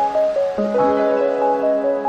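Background music: a gentle keyboard tune repeating a short pattern of notes over held chords, with a change of chord about half a second in.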